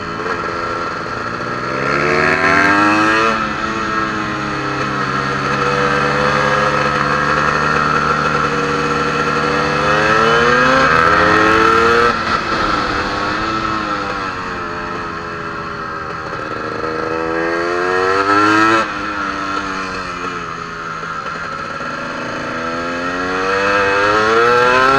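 KTM EXC 300 single-cylinder two-stroke engine heard from on board the bike, revs climbing in long sweeps and dropping sharply at each gear change, several times over.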